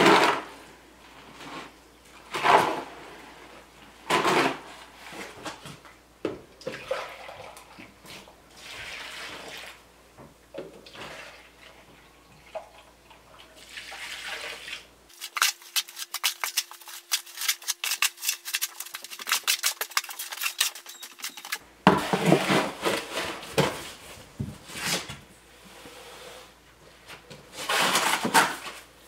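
Wet concrete being mixed by hand in a plastic mixing tub: repeated gritty scraping strokes of a hoe through the mix against the tub. In the middle, a stretch of water being poured in from a plastic jug, with more water added a little at a time.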